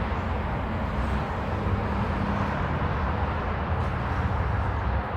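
Steady vehicle running noise: a low engine drone under a constant rush of road or wind noise.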